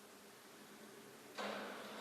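A sudden crash about one and a half seconds in, fading over about a second, over faint steady background noise.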